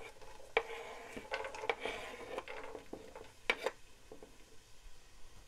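Kitchen utensils and cookware clinking and knocking against each other and the counter, with a few sharp knocks about half a second, two seconds and three and a half seconds in.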